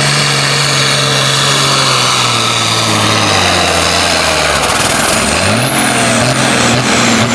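International 1466 pulling tractor's turbocharged 466-cubic-inch diesel running hard under full load on the sled, then winding down about two seconds in as the pull ends. There is a short rev around five seconds in, and a high whine falls in pitch over the second half.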